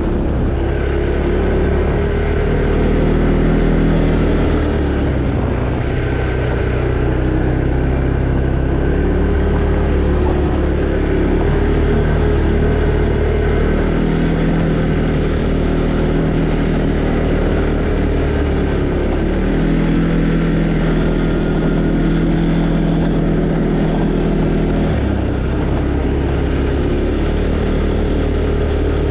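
Arctic Cat Alterra 700 ATV engine running under way, its pitch shifting up and down every several seconds as throttle and speed change.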